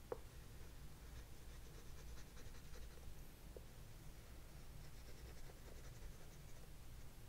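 Oil pastel stick rubbing on a painted wood panel in faint short strokes as colour is dabbed onto a flower's petals, with a light tap just after the start and another near the end.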